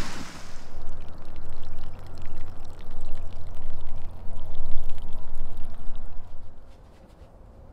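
Water pouring out of a tipped-over plastic water barrel and running off across dirt and over a concrete edge. The rush comes in surges and stops fairly suddenly about seven seconds in.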